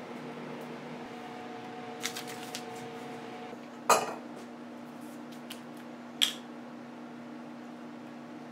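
A stainless steel milk pitcher is set down on a wooden counter with a loud metallic clank just before four seconds in, after a few light clicks. About two seconds later there is a sharp plastic click from a milk bottle's cap, all over a steady low hum.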